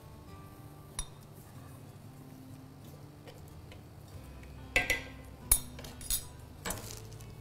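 Kitchen utensils clinking and knocking against a work surface: a single click about a second in, then several sharp knocks and clinks in the second half. Faint background music runs underneath.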